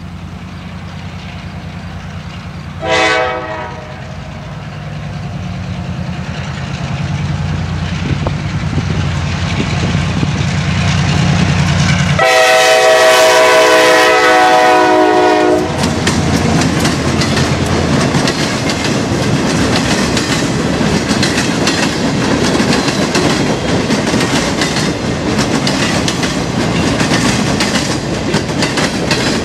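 CSX freight train with two diesel locomotives passing close by. One short horn blast sounds about 3 seconds in while the engine drone grows louder, then a long chord horn blast of about three and a half seconds comes as the locomotives go by. After that the boxcars roll past with a steady rattle and clickety-clack of wheels on the rails.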